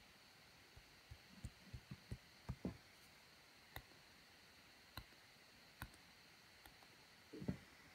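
Near silence with scattered faint, sharp taps and clicks, a few low soft bumps in the first half and a louder cluster of bumps near the end.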